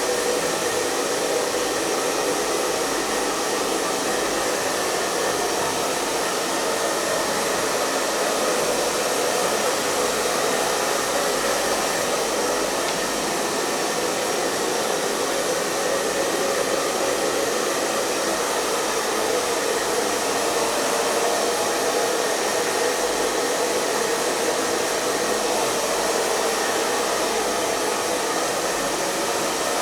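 Hair dryer running steadily: an even, unchanging rush of airflow and motor noise, with a faint steady hum underneath.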